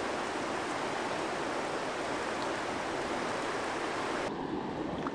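Steady rush of river current, an even hiss of flowing water with nothing else standing out.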